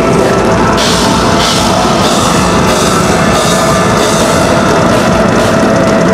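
Live symphonic black metal played loudly by a full band, with a rock drum kit driving it: rapid kick drums underneath and cymbal crashes repeating from about a second in.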